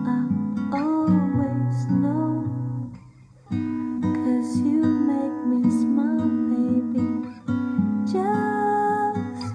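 Background music: acoustic guitar strumming, with a short break about three seconds in.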